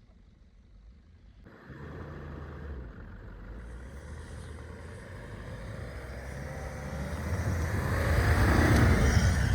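Off-road SUV engine working under load in deep snow, coming in suddenly about a second and a half in and growing steadily louder, its pitch wavering as the engine is revved, loudest near the end.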